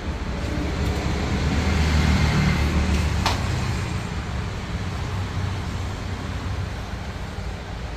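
Low motor-vehicle rumble that swells about two seconds in and then eases off, with a single sharp click just after three seconds.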